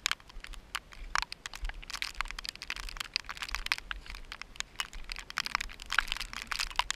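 Running footsteps on a wet, rocky mountain trail: irregular crunches and scrapes of shoes on stone and grit, several a second, over a low rumble.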